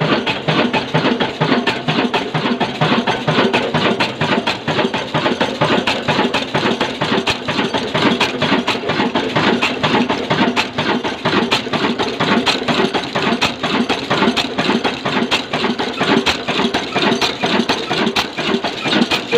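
Slow-speed 'kala' diesel engine of 18–20 hp, rated 300 rpm, running steadily with its heavy flywheels, giving an even, regular knocking beat.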